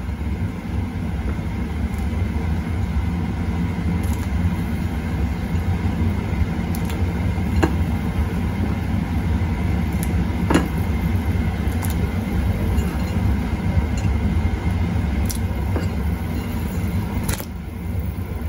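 A stainless steel pot of water boiling hard with tapioca-flour balls (bakso aci) in it: a steady low bubbling rumble. A few faint clicks and small splashes come as more balls are dropped in by hand.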